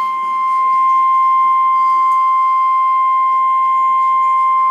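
NOAA Weather Radio's 1050 Hz warning alarm tone: a single steady, unbroken high tone over light radio hiss. It signals that a warning-level alert, here a tornado warning, is about to be broadcast.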